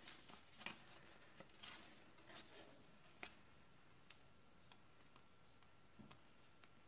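Near silence, broken by a few faint ticks and rustles of cardstock being handled and pressed together, mostly in the first three seconds.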